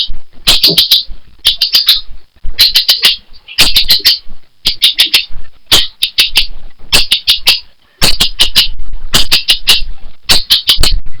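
Bird-like chirping in quick runs of three to five sharp notes, one run about every second.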